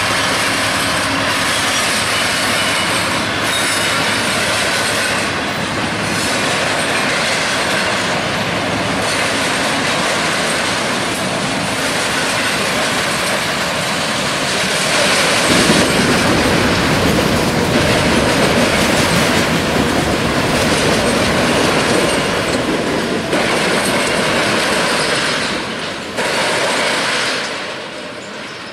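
A model Union Pacific manifest freight train rolling past: diesel locomotives, then a long string of freight cars with steady wheel-on-rail noise. The sound grows fuller about halfway through and fades in the last couple of seconds as the train clears.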